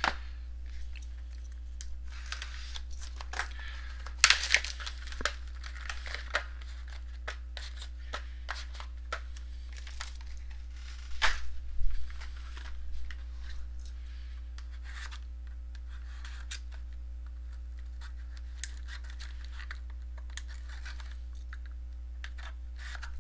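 Card-pack wrappers and card packaging being handled: crinkling and tearing in short bursts, with scattered light clicks, over a steady low electrical hum.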